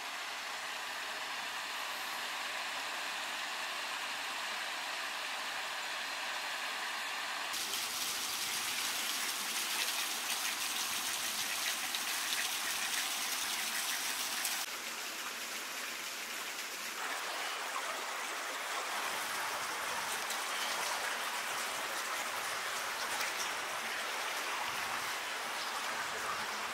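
A woodland creek running over rocks and down a small waterfall, a steady rushing of water whose tone shifts about 7 seconds in and again about 15 seconds in.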